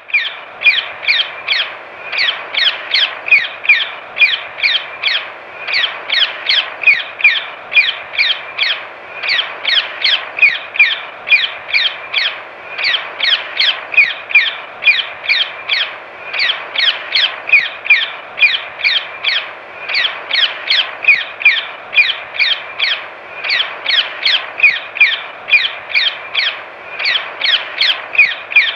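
Rose-ringed parakeet giving a long, rapid series of harsh, high-pitched calls, each a short falling note, about three a second in runs of several calls with brief breaks between runs.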